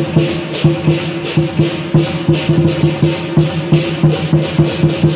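Traditional lion dance percussion: a big drum with clashing cymbals and gong beating a steady, driving rhythm of about four strokes a second, over a steady low ringing tone.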